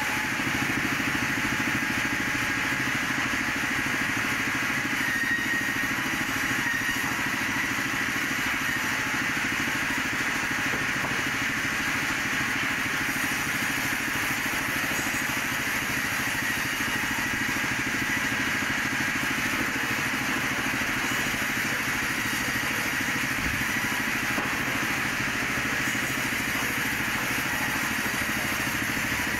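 Sawmill band saw running steadily while a very hard teak log is fed through it.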